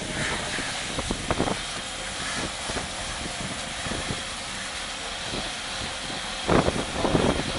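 Fire engine's pump running steadily while a hose sprays water onto a firefighter's drysuit and boots, a constant hiss of spray. A few short, louder thumps come about a second in and again near the end.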